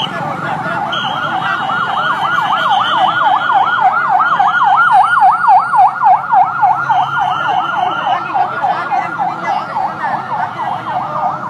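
Emergency vehicle siren in a rapid yelp, about four or five pitch sweeps a second. It grows louder toward the middle and eases a little near the end, with a higher steady tone sounding on and off.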